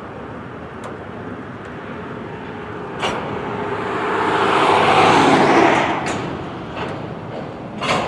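Double-stack intermodal well cars rolling past, a steady rumble of steel wheels on rail with several sharp clacks, swelling louder about halfway through.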